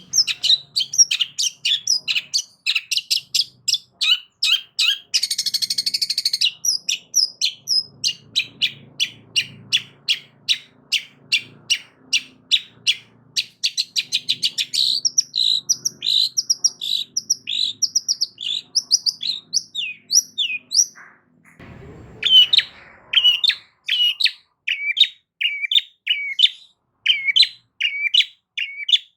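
Long-tailed shrike (cendet) singing loudly: a rapid run of short, sharp chirps, several a second, with a harsh scratchy burst about five seconds in. After a brief break a little past the middle, it repeats one chirp at an even pace of about three a second.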